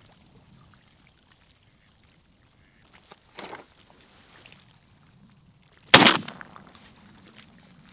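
A single shotgun shot about six seconds in, a sharp crack with a short decaying tail, fired at a duck flying over the decoys. A shorter, much fainter sound comes a few seconds before it.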